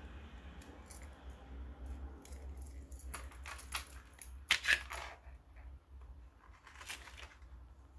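TOPS MSK fixed-blade knife drawn from its moulded plastic sheath: a run of plastic clicks and scrapes, the sharpest about four and a half seconds in, then another short scrape near seven seconds.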